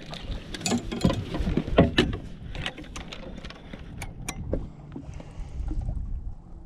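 Irregular clicks and knocks of fishing tackle being handled in a boat, the loudest about two seconds in, giving way after about four and a half seconds to a low steady rumble of wind and water.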